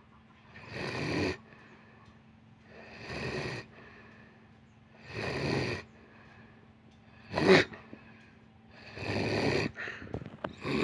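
Someone asleep and snoring in a slow rhythm, one noisy snore about every two seconds, with one shorter, louder snort about seven and a half seconds in. A faint steady hum lies underneath, and a few small clicks come near the end.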